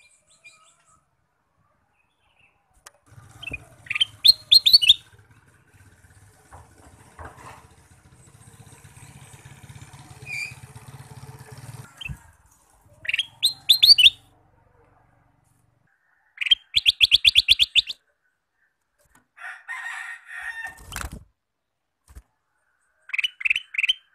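Male kutilang emas (ruby-throated bulbul) singing loud, lively song phrases of rapid repeated high notes. There are five bursts, a few seconds apart.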